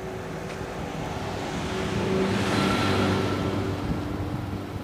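A motor vehicle driving past on the road, its engine hum and tyre noise growing louder to a peak about halfway through, then fading away.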